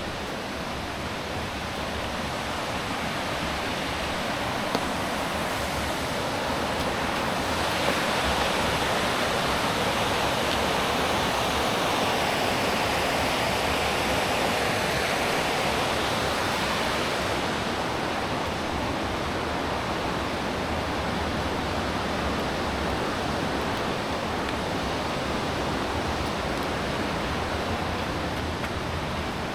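River water rushing steadily, swelling louder about a quarter of the way in and easing back past the middle.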